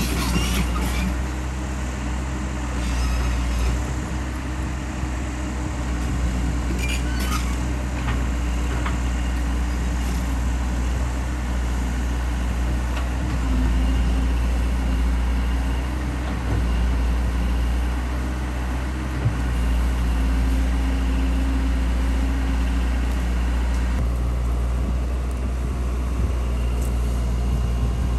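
A large engine running steadily at a constant speed: a continuous low drone with a steady hum, and a few brief knocks on top.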